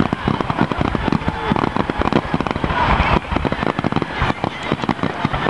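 Fireworks going off in a rapid, dense string of sharp cracks and pops, many per second.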